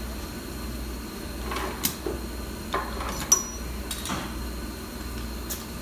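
A few scattered metallic clinks and knocks of hand tools and parts being handled around a car's rear wheel hub, over a steady low hum.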